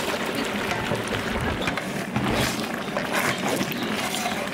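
Chopped goat intestine tipped from a metal basin into a large aluminium cooking pot, then stirred with a ladle: a continuous noisy clatter and rustle.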